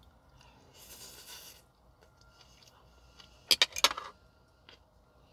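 Close-up eating sounds: a short crunchy chewing noise about a second in, then around three and a half seconds in a quick cluster of sharp metal clinks, a fork against a plate.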